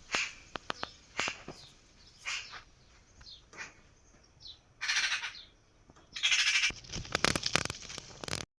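Scattered short chirps, like birds calling, mixed with sharp clicks. There are two louder bursts of noise about five and six seconds in, and the sound cuts off abruptly near the end.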